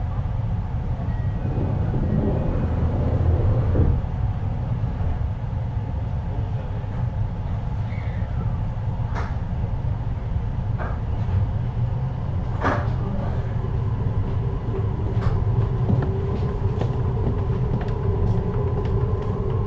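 JR Hokkaido 733-series electric train running between stations, heard from inside motor car MoHa 733-1002: a steady rumble of wheels on the rails with a faint motor tone rising a little in pitch in the second half, and a few sharp clicks.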